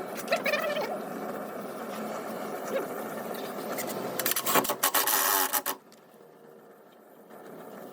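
Workshop scraping and rubbing, with a louder stretch of rapid strokes about four and a half seconds in that stops suddenly, then quieter.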